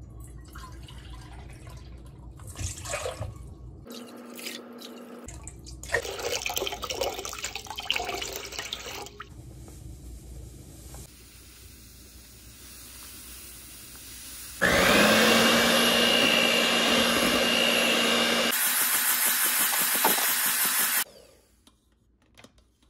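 Water pouring into a steel mixing bowl and powdered whipped-topping mix tipped in. Then, the loudest part, an electric mixer runs for about six seconds from a little past the middle, whipping the topping, with a brief rising whine as it starts. It cuts off suddenly near the end.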